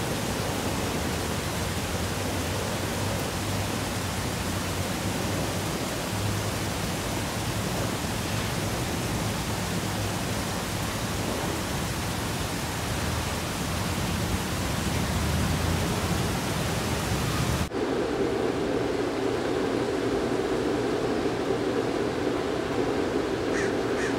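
A steady, even rushing hiss of outdoor noise. About three-quarters of the way through it cuts abruptly to a duller, lower noise, and a quick run of short high calls starts near the end.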